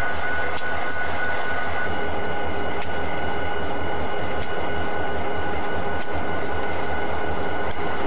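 Diesel locomotive idling steadily, a constant low engine sound with a steady high whine over it and a few faint clicks.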